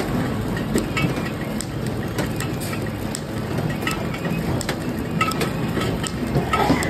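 Soap-bar flow-wrap packing machine running, its chain conveyor pushing bars in under the wrapper film: a steady mechanical clatter with repeated sharp clicks, a little louder near the end.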